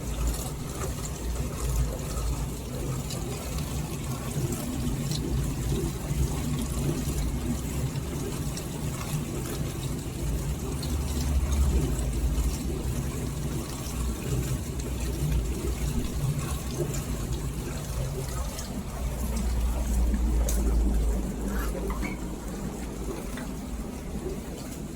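Beko DFN05211 dishwasher running, with water rushing and splashing inside over a low steady hum that swells twice, about halfway through and again near the end.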